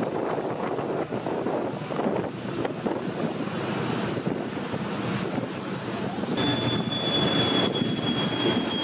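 Steady machinery noise with a thin high-pitched whine on a warship's deck. The whine drops to a lower pitch abruptly about six and a half seconds in.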